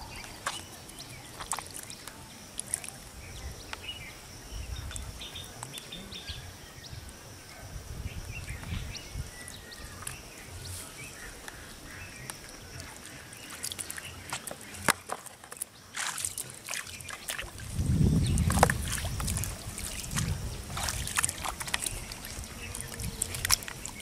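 Hands digging and squelching in wet mud and shallow puddle water, with scattered wet clicks and small splashes, and a louder slosh of water about three-quarters of the way through.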